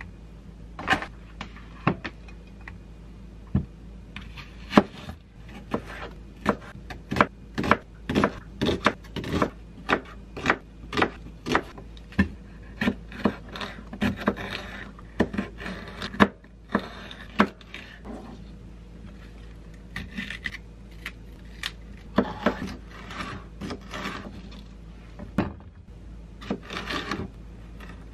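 Knife slicing bell peppers on a plastic cutting board: a run of sharp taps as the blade strikes the board with each cut, about two to three a second, broken by a few short pauses.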